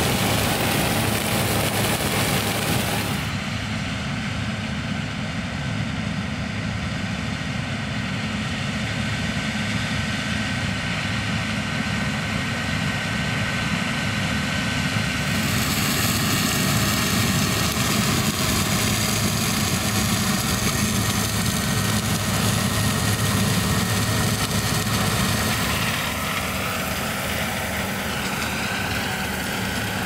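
John Deere X9 1100 combine harvester running steadily while harvesting corn, a continuous heavy engine drone. The tone of the sound changes abruptly about 3 seconds in, around the middle, and again near the end.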